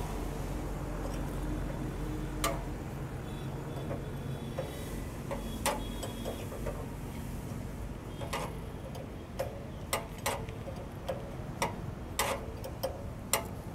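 Metal clicks and taps of a spanner and pliers working the hydraulic hose fittings on a barrier's hydraulic cylinder, a few at first and coming much more often in the second half, over a steady low hum.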